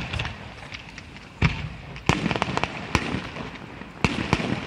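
Aerial firework shells bursting: about five sharp bangs at irregular intervals, with quick crackling and popping between them.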